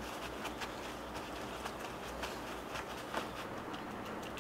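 Soft kitchen handling sounds: a few light taps and rustles of parchment paper as a gloved hand works an Atka mackerel fillet on a cutting board, over a steady low background hum.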